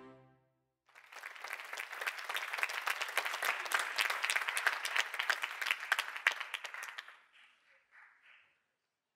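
The last held note of the music dies away, then an audience applauds from about a second in, the clapping thinning to a few scattered claps near the end.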